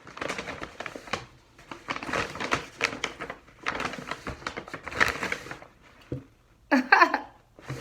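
Close-miked crunchy chewing: crisp food crunching in irregular bites, with a short louder sound near the end.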